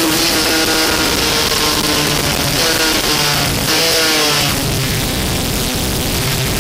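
Racing motorcycle engine heard from the machine itself, with constant wind hiss. Its note drops in steps between about two and four and a half seconds in as the rider backs off and shifts down for a bend, then holds steadier through the corner.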